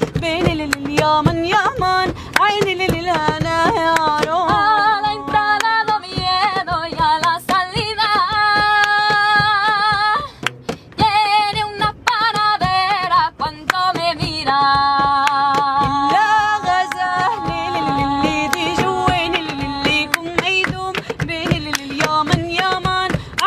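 A woman singing a traditional folk melody with ornamented, wavering notes and a few long held notes, over a steady beat of hand taps.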